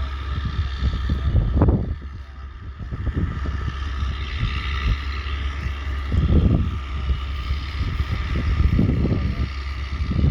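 Ford 8630 tractor's diesel engine running steadily, with wind buffeting the microphone in gusts, heaviest about a second and a half in and again about six seconds in.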